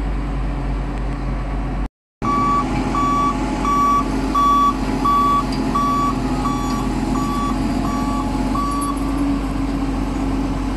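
Heavy diesel machinery running steadily while a motion-warning beeper sounds about twice a second; the beeping stops about nine seconds in. The sound drops out completely for a moment near two seconds in.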